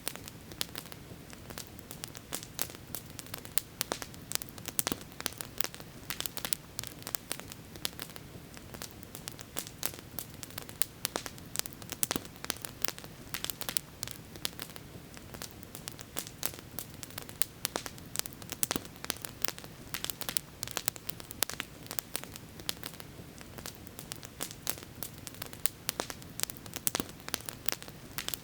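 Campfire burning, wood crackling and popping in many sharp, irregular snaps over a steady low hiss.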